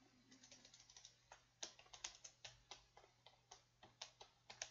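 Faint typing on a computer keyboard: an irregular run of keystrokes as a word is typed out.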